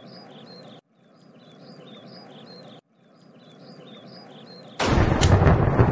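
Looped outdoor ambience of small birds chirping over a soft hiss, which cuts off and fades back in every two seconds. About five seconds in, a sudden, much louder rushing, crackling noise with sharp cracks takes over.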